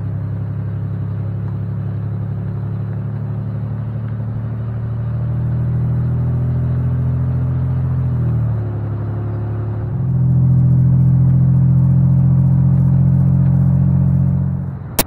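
A car driving, its engine droning steadily with a low rumble. The engine note drops and wavers about eight seconds in, then runs louder from about ten seconds, and the sound stops abruptly with a sharp click just before the end.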